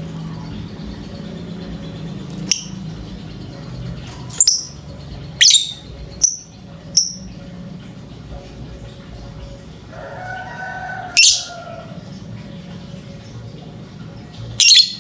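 Lovebird calling in short, shrill, high-pitched chirps, about seven in irregular succession over a low steady hum. These are the calls of a lovebird in breeding condition, played as a lure to set other lovebirds calling.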